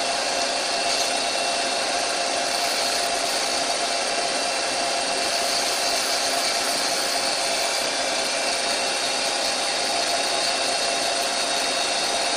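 Doosan CNC lathe running with its spindle turning, a steady whir with a few constant tones over a hiss, during tool-offset touch-off.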